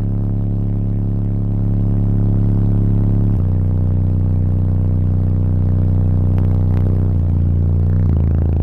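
Car audio subwoofers driven by four Taramps Smart 8K amplifiers, playing bass-heavy music at extreme volume in the cabin: long sustained deep bass notes that shift pitch a few times, reading about 160 dB at 35 Hz on an SPL meter.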